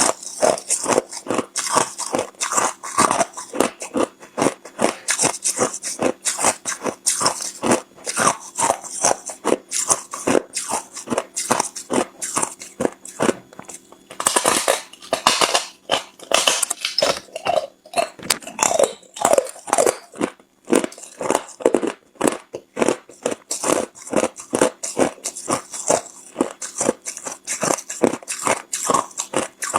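Hard clear ice being bitten and chewed close to the microphone: a continuous run of sharp crunches and cracks, a few each second.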